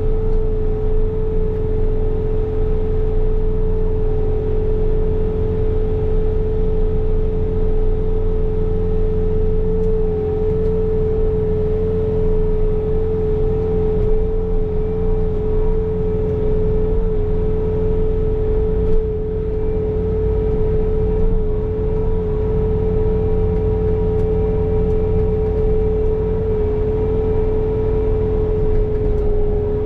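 Bobcat T66 compact track loader's diesel engine running steadily at high throttle while it drives the snow blower attachment, with a steady whine held at one pitch over the engine rumble.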